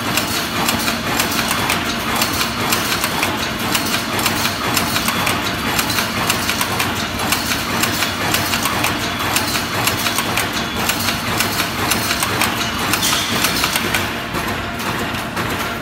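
DP-AW-1200E chicken cage wire mesh welding machine running: a continuous mechanical clatter of rapid, closely spaced knocks and clicks.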